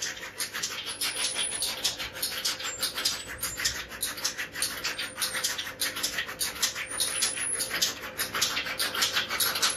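Electric-motor-driven chaff cutter chopping green fodder: a rapid, even run of chopping clicks from the flywheel blades over a faint steady hum.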